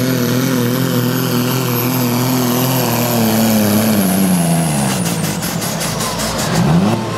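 A pulling tractor's engine running flat out under the load of a weight-transfer sled, with a high whine above it. Its pitch falls from about three seconds in as the tractor bogs down and stops at the end of its pull. A run of crackles follows, then a brief rise and fall in pitch near the end.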